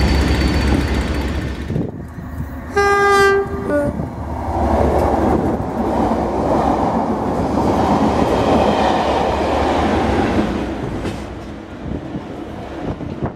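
Class 37 diesel locomotive's engine drone. About three seconds in, a loud horn blast that ends on a shorter second note. Then the train passes at speed, its coaches rumbling over the rails, and the noise dies away near the end.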